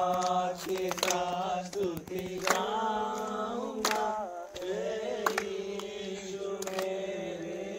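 A group of young men singing together in unison, holding long notes and moving between them.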